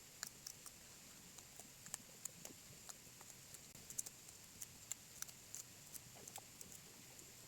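Faint, irregular knife taps as wild black taro is cut into pieces, about one or two clicks a second.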